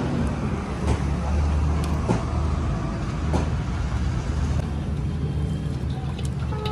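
Tractor engine running steadily with a low drone. A few sharp clicks come through, about one, two and three and a half seconds in.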